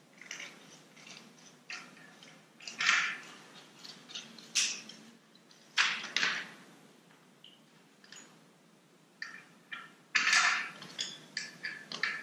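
Scooter grip tape being cut with scissors and its backing peeled away: a string of short, irregular rasping rustles and snips, the loudest about three, six and ten seconds in.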